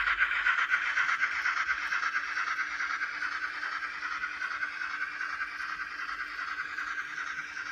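Steam sound from the DCC sound decoder of a Graham Farish N gauge model of the GWR Castle-class locomotive 5029 Nunney Castle, played through its tiny speaker as the model runs: a loud, steady steam hiss that slowly fades, over a faint steady hum.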